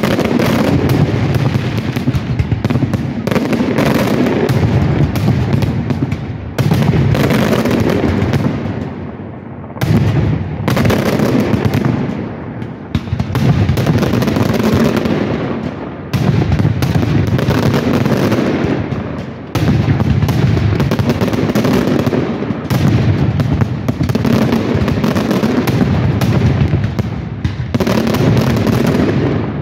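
Fireworks display: a dense, almost unbroken barrage of aerial shells bursting and crackling, with brief lulls every few seconds.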